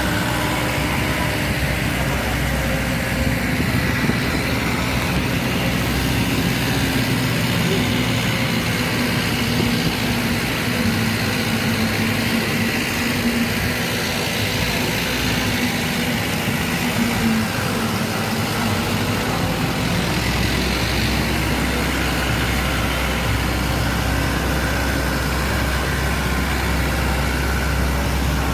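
A motor vehicle's engine running steadily, with the low rumble growing heavier about twenty seconds in; faint voices underneath.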